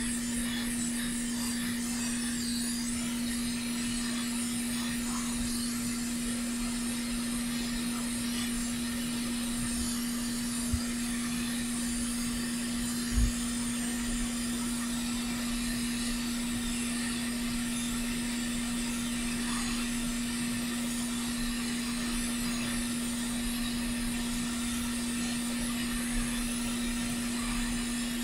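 Hot air rework station blowing on a surface-mount chip to melt its solder joints for removal: a steady hum with an even rush of air. Two soft knocks come partway through.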